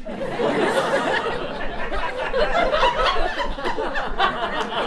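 A theatre audience laughing, many people at once, breaking out suddenly at the start and carrying on steadily.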